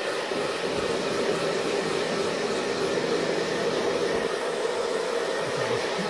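Handheld hair dryer running steadily, a constant blowing whir as it blows onto a wet cat's fur.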